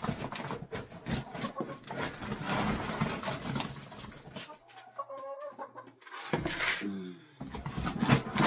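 Hens clucking, with a few short calls in the middle and a lower, falling call near the end, over loose rustling and shuffling noise.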